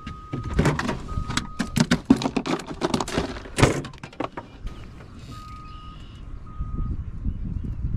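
A run of knocks, clunks and rattles as gear is handled in a small fishing boat, dense for the first few seconds and then settling down.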